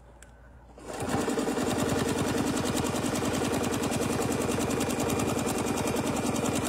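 Domestic sewing machine starting up about a second in and then stitching steadily at speed, the needle running in a fast, even rhythm as a straight line of ruler-work quilting is sewn.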